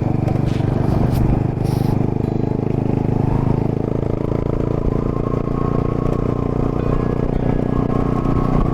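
Honda Monkey's single-cylinder four-stroke engine running at a steady speed while the bike rides along a gravel track, with a constant engine note under road noise.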